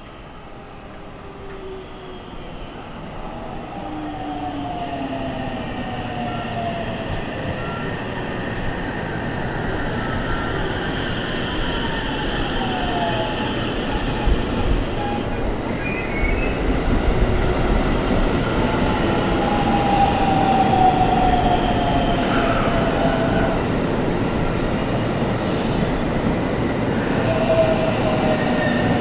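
JR Central 313 series electric train drawing in under braking: its VVVF inverter and traction motors whine in several tones that slide down in pitch as it slows. The rumble of wheels on rail grows steadily louder as it approaches.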